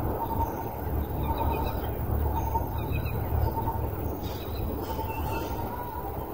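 Outdoor ambience: a low rumble of wind on the microphone, with faint high chirping calls repeating about once a second.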